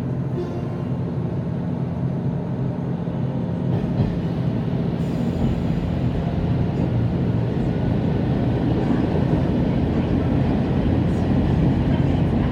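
Diesel railcar running, heard from inside the car: a steady low engine drone over wheel and rail rumble, growing gradually louder towards the end.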